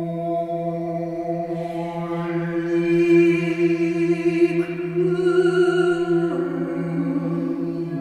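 Two voices singing unaccompanied in long held notes: a low voice holds one steady drone tone throughout, while a woman's higher voice sustains notes above it and shifts pitch about halfway through and again near the end.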